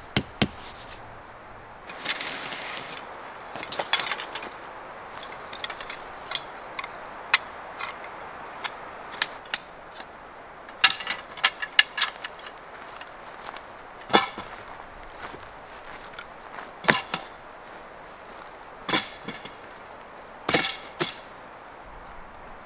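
Metal tent pole sections clinking and clacking against each other as they are unfolded and fitted together, a string of sharp clicks and clatters with the loudest bunches about eleven, fourteen, seventeen, nineteen and twenty seconds in.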